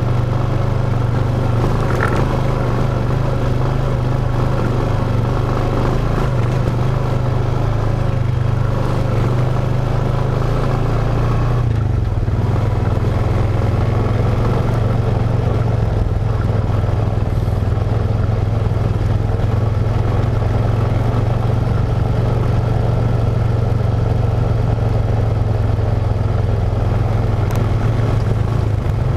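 ATV engine running steadily while the machine is ridden along a dirt trail, its tone shifting lower about twelve seconds in.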